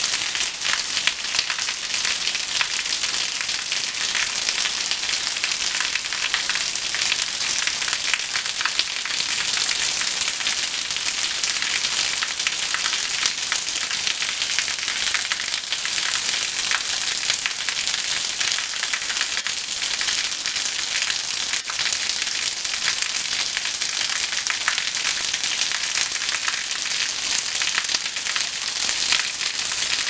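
Thin streams of water falling from spouts in a mossy rock face and splashing into the pool below: a steady hissing patter of fine splashes.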